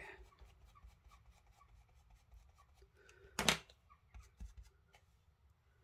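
Faint scrubbing of a small ink blending brush dabbed and rubbed on cardstock, with one sharp knock about three and a half seconds in and a couple of lighter taps after it.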